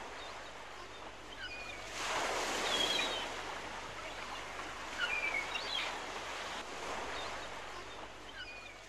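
Ocean surf: a steady wash of waves that swells louder about two seconds in and again around five seconds, with birds giving short chirps over it now and then.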